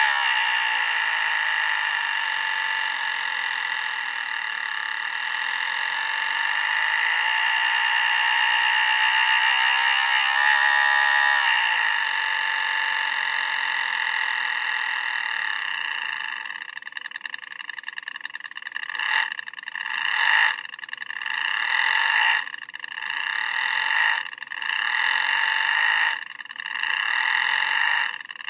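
RC drift car's electronic engine-sound unit playing a simulated Nissan S14 engine through a small speaker, thin and without bass. It idles steadily for about sixteen seconds, then gives about six short revs, one every second or two.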